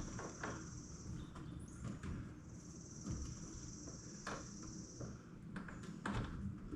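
Faint scattered clicks and knocks of hands pressing plastic push-pin clips into a truck bumper's plastic trim piece, a few of them sharper. Behind them runs a steady high-pitched trill that stops for a while and starts again.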